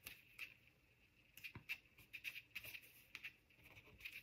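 Very faint, scattered ticks and rustles of fingertips pressing and rubbing a paper label and star onto a cardstock card.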